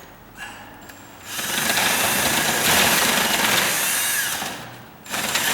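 Power drill with a three-quarter-inch paddle bit boring into the wooden door jamb for a deadbolt's bolt hole. It runs for about three seconds starting a little over a second in, stops, then starts again near the end.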